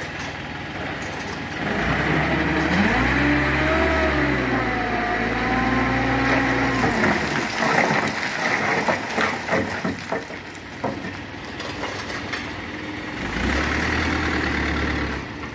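Dump truck engine revving up and holding high revs to drive the hydraulic hoist that tips the loaded bed. Partway through, a clatter of rocks sliding and tumbling out onto the ground, then a second shorter rev near the end as the bed tips further.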